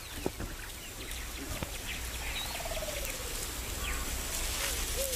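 Outdoor wildlife ambience of small birds chirping over a low steady rumble, with a falling run of rapid notes about two to three seconds in.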